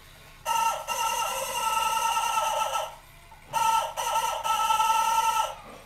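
Antique Emilian Wehrle Black Forest rooster clock crowing through its bellows-blown pipe mechanism. It gives two long, steady crows of about two and a half seconds each, half a second apart.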